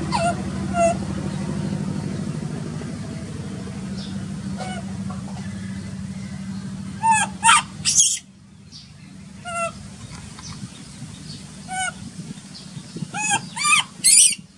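Baby macaque crying: repeated short, high calls that rise and fall, coming in bouts that are loudest about halfway through and near the end. A steady low hum runs under the first half and cuts off suddenly.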